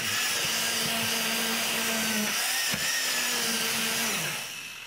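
Commercial immersion blender (burr mixer) running in a pot of artichoke bisque, a steady motor whine. Its pitch drops briefly a little past halfway and then recovers. Near the end the pitch falls and the sound dies away as the motor slows.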